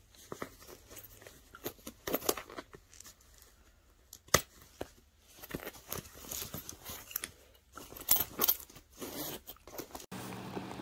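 Hands handling a leather-look handbag: crinkling and rustling of the material with scattered irregular clicks and taps, one sharp click about four seconds in.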